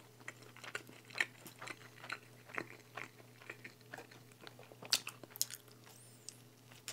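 Close-miked chewing of a pizza slice: soft mouth clicks and small crunches, with a louder bite about five seconds in. A faint steady hum lies underneath.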